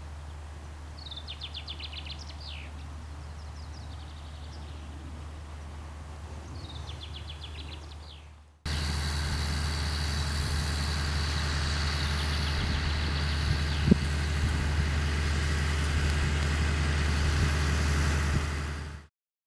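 John Deere 7930 tractor's six-cylinder diesel engine running steadily under load as it pulls a 24-row Vicon sugar beet planter. Fainter at first with small birds chirping over it, then abruptly louder and closer about eight and a half seconds in, with a single short click a few seconds later, before fading out at the end.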